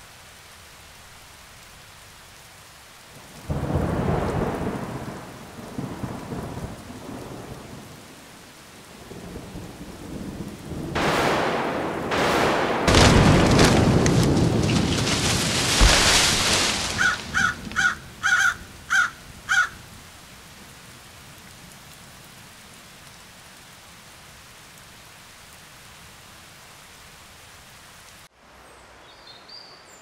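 Thunderstorm sound effects: a steady hiss of rain, a rumble of thunder a few seconds in, then a long, louder crash of thunder near the middle that ends in a sharp hit. Just after the crash comes a short run of about six high chirps.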